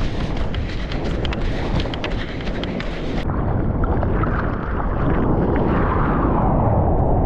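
Wind buffeting an action camera's microphone with crackling. About three seconds in the sound turns duller: rushing sea water and splashing as the board is paddled through choppy surf.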